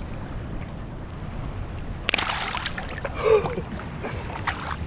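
Wind and shallow water lapping on the microphone, broken about two seconds in by a sudden short splash as a released mangrove snapper bolts from the hand.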